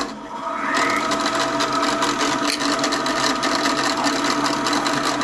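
Komunar 2M112 bench drill press, fitted with an end mill, being switched on: its motor and belt-driven spindle spin up with a short rising whine over about the first second, then run steadily at around 1000 rpm with a constant hum.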